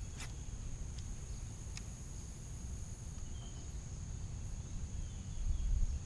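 Steady high-pitched drone of insects, with a low rumble under it, a few faint clicks in the first two seconds, and a louder low bump about five and a half seconds in.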